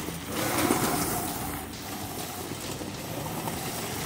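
Homemade electric buggy with a QS138 motor driving over dry, gravelly ground. Tyres crunch over a steady motor whine, and both get louder about half a second in.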